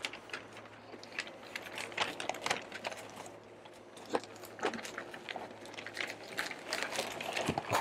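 Pink butcher paper crinkling and rustling as it is folded and rolled tightly around a smoked brisket, with many irregular small crackles.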